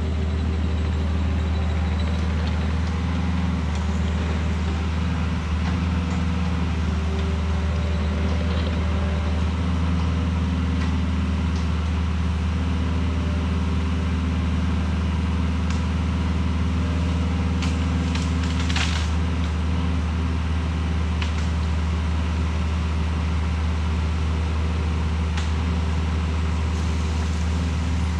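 Kubota excavator's diesel engine running at a steady speed, with a few faint clicks or knocks over it, the clearest about two-thirds of the way through.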